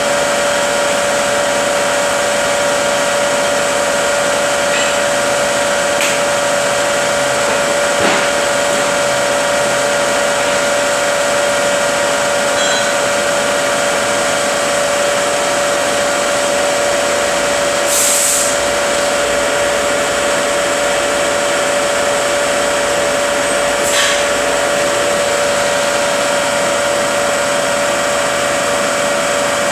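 Rebuilt Eaton Fuller FSO-8406A truck transmission running on a test dyno: a steady gear whine over even mechanical noise. A few brief clicks and a short hiss about eighteen seconds in.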